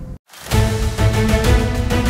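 Background music: after a brief gap of silence just after the start, a new track comes in with a steady beat.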